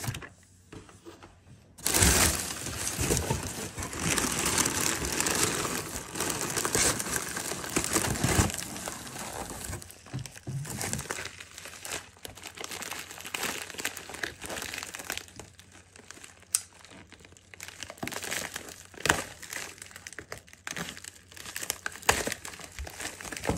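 Packing material crinkling and rustling as it is handled in a shipping box. After a short quiet start it is loudest for several seconds, then turns into lighter handling with scattered sharp crackles.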